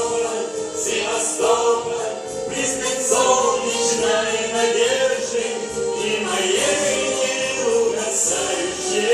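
Live song performance: several male voices singing together over a backing track.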